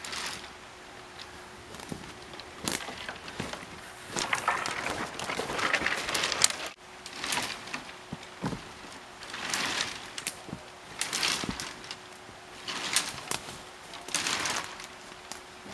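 Footsteps crunching through dry leaf litter and piled brush, with branches rustling and snapping as they are stepped on and moved, in several uneven spells.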